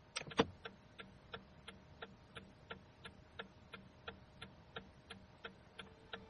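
Steady, even ticking, about three ticks a second, over a faint held tone, opened by two sharper clicks in the first half second.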